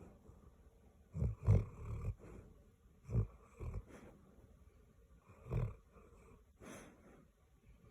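A sleeping goldendoodle snoring, with short low snores coming every second or two, several of them in quick pairs.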